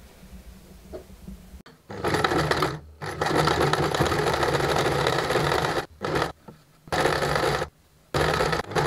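Janome 1 Step 2319S domestic sewing machine stitching along a pinned, folded-down cotton neckline. It starts about two seconds in and runs in several spurts of one to three seconds with short stops between.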